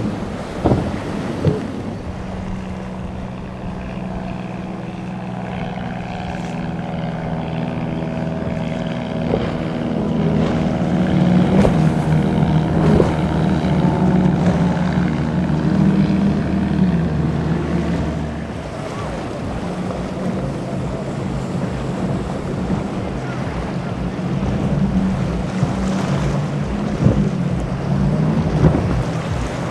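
Several high-horsepower outboard engines running at speed on a planing powerboat, over wind and the hiss of spray. First comes a steady, rising engine note from the five Mercury 450R outboards of a Midnight Express. About two-thirds of the way through the engine note changes abruptly to that of a boat with three Mercury 300R outboards.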